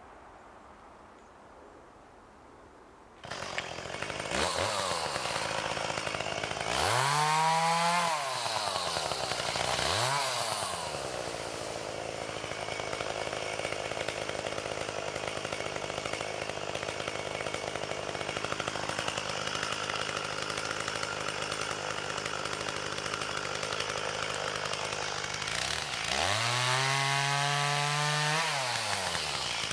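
Two-stroke chainsaw starting about three seconds in, revved twice, then idling. Near the end it runs at full throttle, cutting into the base of a standing dead tree.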